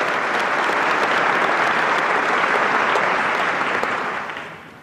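A large audience applauding, a dense steady clatter of clapping that fades out near the end.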